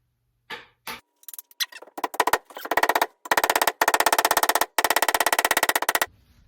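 Drum roll: a few scattered hits build into a very fast, even roll that breaks off briefly twice and stops about six seconds in.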